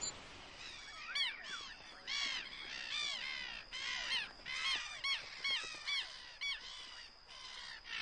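A colony of brown-hooded gulls calling: many short calls, each rising and falling in pitch, from several birds at once, beginning about a second in.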